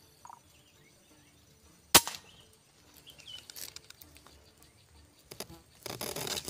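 A single sharp shot from a scoped hunting rifle about two seconds in. Near the end a rustling noise in the grass starts up.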